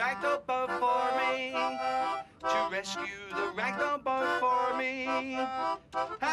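Instrumental music: a tune of held notes, some with a slight wobble, broken by short pauses.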